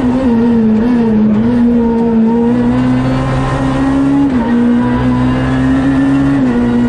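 Renault Clio R3C rally car's engine heard from the cabin, running hard at high revs. Its note holds fairly steady and drops a step twice, about four and six and a half seconds in.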